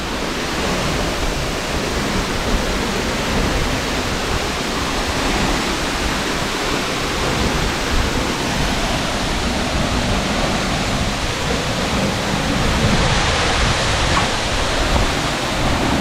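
Steady rushing of a tall waterfall pouring into its plunge pool, a constant, even roar of falling water.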